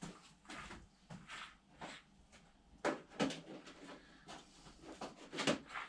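Scattered light knocks and clicks of hand tools being handled at a stopped metal lathe, irregular, with the loudest ones about three seconds in and again near the end.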